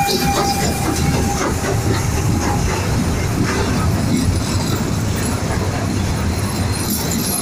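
Steam train's passenger carriages rolling past at low speed: a steady rumble with wheels clicking over the rail joints. The last of the steam locomotive's whistle note fades out in the first second or so.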